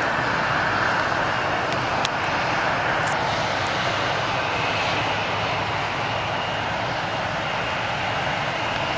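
Boeing 737-700's CFM56-7B turbofan engines running at taxi power: a steady jet rush with a thin, even whine above it.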